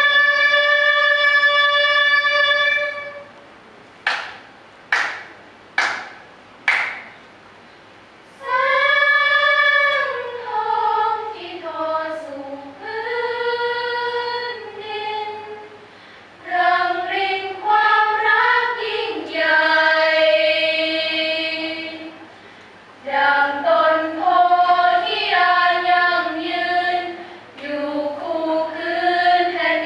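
Female choir singing unaccompanied in harmony: a long held chord, then four short sharp accents about a second apart, then flowing phrases whose melody rises and falls, with brief breaks between them.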